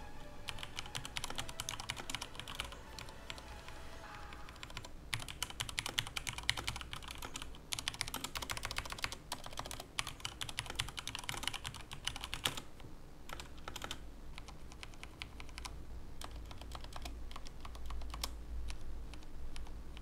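Typing on an XPG Summoner mechanical keyboard with Cherry MX Speed linear switches: quick runs of keystroke clicks with short pauses, thinning out in the last several seconds.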